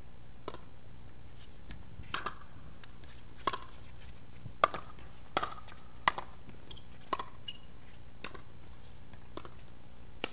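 Pickleball rally: sharp hollow pocks of the plastic ball coming off paddles and the court, about a dozen spaced roughly a second apart, some in quick pairs, the loudest a little under halfway through.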